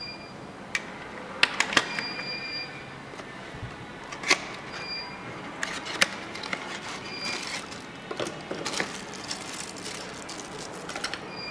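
Short high-pitched electronic beeps from a home alarm system's control panel, one held longer about two seconds in, mixed with sharp plastic clicks of its buttons being pressed.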